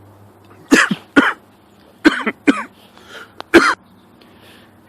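A man coughing: five sharp coughs in quick fits, after something he swallowed went down the wrong way.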